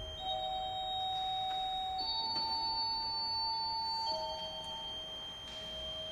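Giroud pipe organ playing slow, soft, pure-toned held notes in a high register, one note changing to the next about every two seconds.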